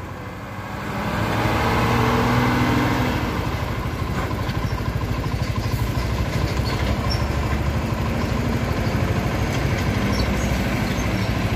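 Mercedes-Benz 1521 truck's six-cylinder OM366LA turbo-intercooled diesel pulling away with a trailer in tow. The engine note swells over the first two seconds or so, then settles into a steady low rumble.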